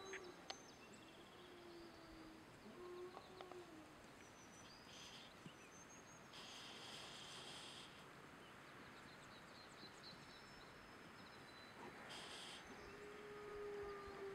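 Faint rural outdoor ambience with songbirds chirping. Short buzzy trills come about five, seven and twelve seconds in.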